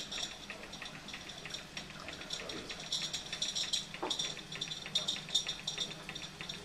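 Liquid running and bubbling in laboratory glassware, a steady watery hiss that surges every second or so, over a steady low hum.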